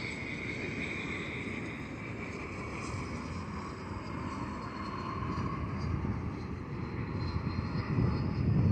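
Regional jet on final approach passing low overhead with its engines running, a whine that drops in pitch as it goes by. A low rumble grows louder near the end as the jet flares over the runway.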